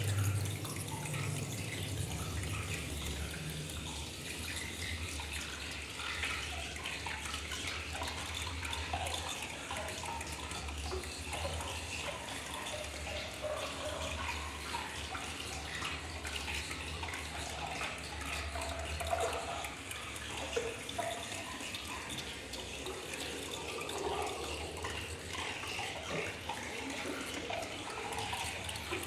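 Electroacoustic sound-art texture: a steady rushing noise like running water, with scattered brief tones over it and a low hum underneath.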